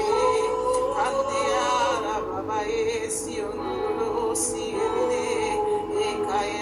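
Background worship music carrying a held, wavering sung melody, with a short high shimmer recurring every second or so.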